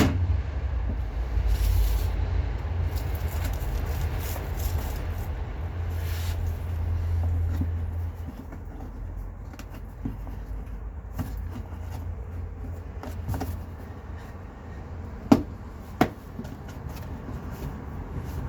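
Plastic under-engine splash shield being handled and fitted back into place: scattered clicks and rustles over a low rumble that drops away about eight seconds in, then two sharp knocks about a second apart near the end.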